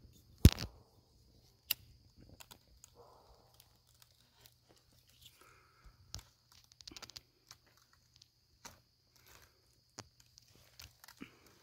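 Crumpled paper burning: scattered crackles and small pops as the flame eats into the sheet, with one sharp snap about half a second in and a quick run of crackles about seven seconds in.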